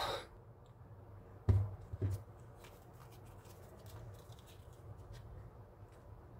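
Handling noise as a smartphone and a power bank are picked up and held: a brief brushing rustle at the start, two sharp knocks about a second and a half and two seconds in, and light scattered clicks.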